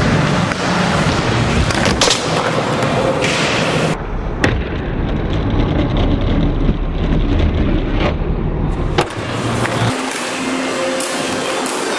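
Skateboard wheels rolling on hard ground, broken by several sharp clacks of the board popping and landing, over a few short cut-together clips.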